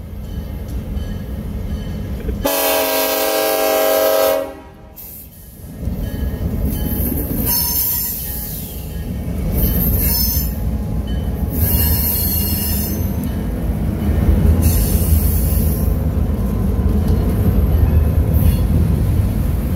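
Canadian National diesel freight locomotives passing a road crossing: one loud horn blast of about two seconds, sounded for the crossing, then a steady heavy rumble of the engines and loaded flatcars going by, growing louder. Short high-pitched wheel squeals come every couple of seconds.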